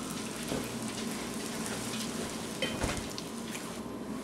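Bacon wrapped around pilot bread sizzling and crackling steadily in a cast iron skillet, thinning out near the end.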